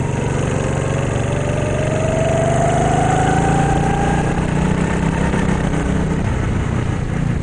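Go-kart engine running steadily, with a pitch that rises evenly over the first four seconds as the kart gathers speed, then levels off.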